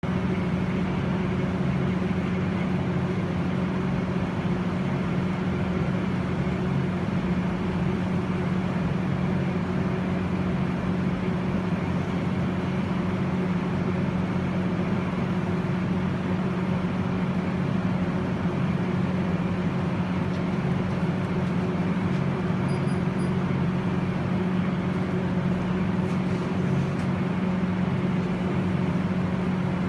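Steady machinery hum: a constant low tone with a fainter higher one over a hiss, unchanging throughout.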